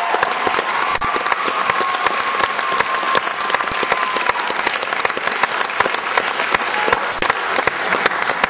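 Audience applauding steadily, with one long held call or whoop over it in the first few seconds.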